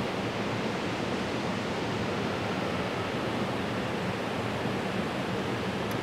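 Small waterfall cascading over rocks: a steady rushing of water.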